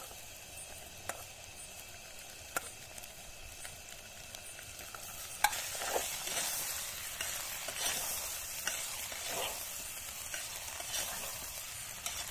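Boiled macaroni being stirred into frying masala in an aluminium pot: a steady sizzle with a few sharp clicks, then from about five seconds in the louder, irregular scrape of a metal spoon stirring against the pot over the sizzle.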